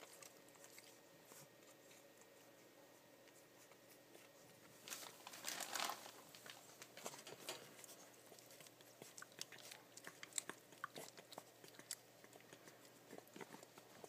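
Young West Highland White Terrier puppies suckling at their mother: faint wet smacking and clicking, with a louder stretch of scuffling about five seconds in.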